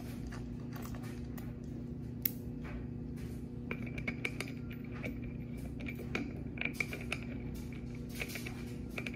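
Light clicks and metallic clinks of air-suspension bag fittings and brackets being handled and fitted by hand, over a steady electrical hum.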